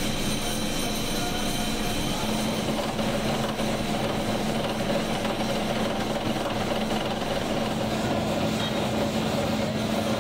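Factory machinery running steadily: a constant hum over an even wash of mechanical noise, with no distinct strikes or pauses.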